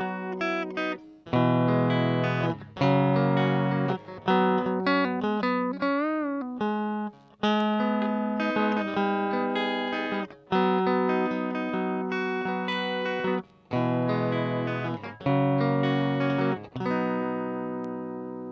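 Squier Classic Vibe '50s Stratocaster electric guitar played through a Kokko mini compressor pedal: a short phrase of chords and single notes, each struck every second or two and fading away. About six seconds in one note wavers with vibrato, and the last chord rings out and fades near the end.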